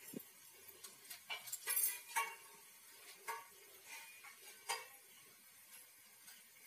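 A hand rubs oil over a stainless steel plate, giving scattered, irregular light clicks and taps as fingers and bangles touch the metal.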